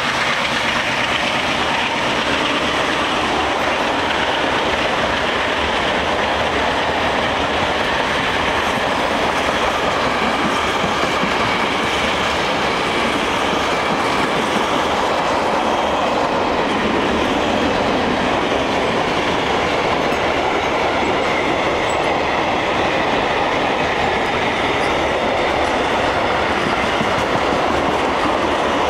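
Long freight train of box and open wagons passing at speed: a loud, steady noise of steel wheels running on the rails, without a break.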